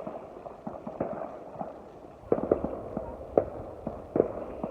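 Fireworks going off in irregular sharp cracks and pops, a few a second, coming thicker from about two seconds in.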